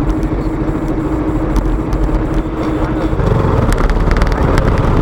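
KTM motorcycle engine running under way, heard through wind noise on the bike-mounted camera; about three seconds in the engine note changes and the low rumble gets louder.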